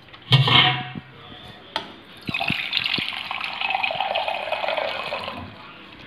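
A steel utensil clanks, then about three seconds of water pouring into a vessel, starting about two seconds in.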